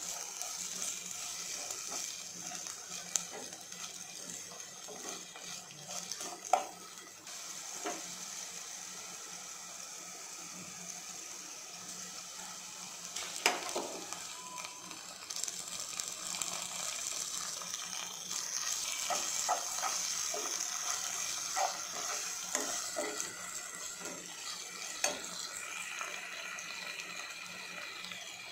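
Sliced onions and curry leaves sizzling in hot oil in a pot while a steel spoon stirs and scrapes them, with a few sharp knocks of the spoon against the pot.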